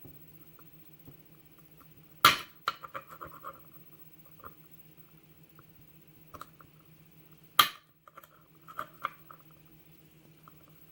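Small metal ticks and scrapes as a tool works at the wrap-around brass retaining clip on a euro cylinder lock's core, with two sharp clicks, about two seconds in and again past the middle.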